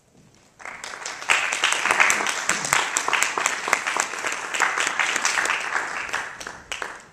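Audience applauding: many hands clapping, starting about half a second in and dying away near the end.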